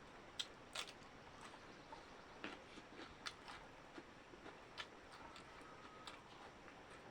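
Close-miked eating of chicken curry and okra: soft chewing with a dozen or so short, sharp mouth clicks and smacks scattered unevenly.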